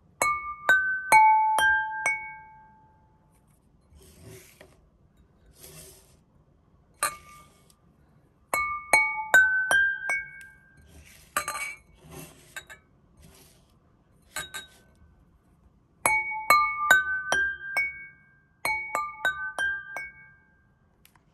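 Five empty drinking glasses struck one after another with a soft-headed mallet, each ringing on with its own clear pitch; the row is played four times. Between runs the glasses clink and scrape as they are moved.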